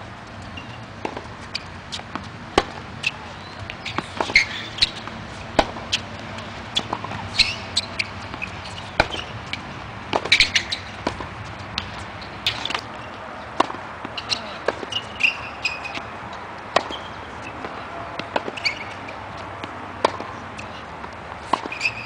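Tennis rally on an outdoor hard court: sharp pops of the ball off the racket strings and bounces on the court, one or two a second at an irregular pace, with short high squeaks in between.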